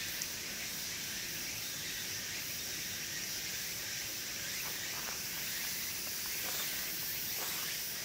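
Steady, unbroken high-pitched chorus of cicadas.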